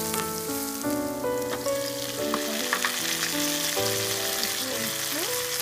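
Onions, curry leaves and crushed ginger-garlic frying in hot oil in a pan, a steady crackling sizzle with stirring. Instrumental background music with a stepping melody plays over it.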